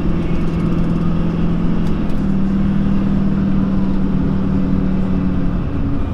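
Duramax LMM 6.6-litre turbodiesel V8 running under way in a truck on a test drive after an engine swap, a steady drone whose note rises a little about two seconds in and eases near the end.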